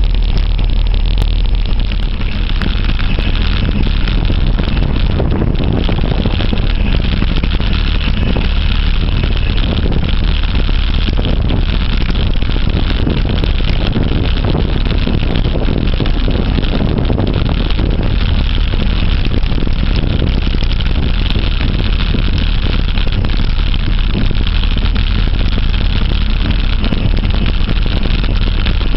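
Wind buffeting the microphone of a camera on a moving mountain bike, over a steady low rumble from the tyres rolling on the ground.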